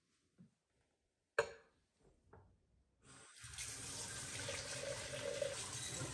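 A sharp knock about one and a half seconds in, then a kitchen faucet starts running about halfway through, its stream splashing into a glass measuring jug held in the sink.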